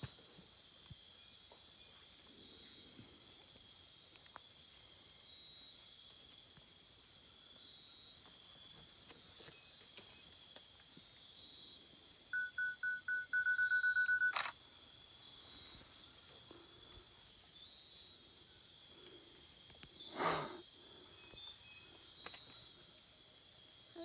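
Night-time rainforest insect chorus: a steady, high-pitched, continuous trilling. About halfway through, a run of quick high beeps runs into one held tone and ends in a sharp click. A short knock comes near the end.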